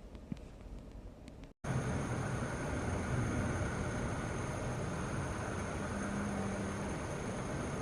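Electric train running through a station, a steady rumble of wheels and motors. It starts abruptly about a second and a half in, after a quieter stretch with a few faint clicks. A faint tone comes in briefly near the end.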